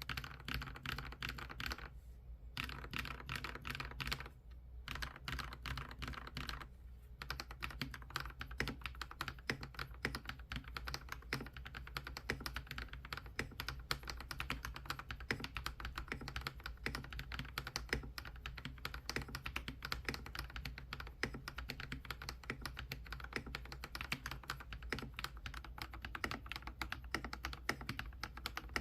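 Continuous fast typing on a Monstargear Ninja 108 Pro mechanical keyboard with fully lubricated switches: a dense run of key clicks, with brief pauses about 2, 4½ and 7 seconds in.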